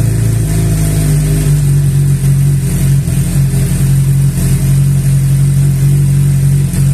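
Suzuki GSX-R750 sport bike's inline-four engine running at a steady idle, holding one even pitch with no revving.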